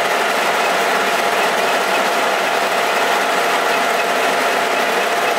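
Metal lathe running, its chuck spinning while a hand-fed cutting tool turns down a lathe centre held in the chuck. A steady machine whir with a constant whine, even throughout.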